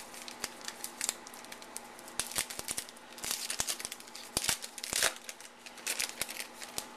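A foil-wrapped Allen & Ginter baseball card pack being torn open and its wrapper crinkled by hand. It is a run of sharp crackles and rustles, loudest in two clusters past the middle.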